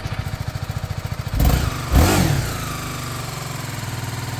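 BMW motorcycle engine running at a steady, pulsing idle just after starting. It is revved twice in quick succession about a second and a half and two seconds in, then settles back to idle.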